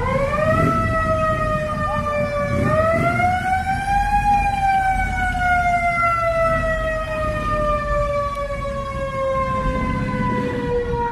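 A siren wailing: it winds up sharply at the start, sags, climbs again about two and a half seconds in, then slowly slides down in pitch, over the low rumble of street noise.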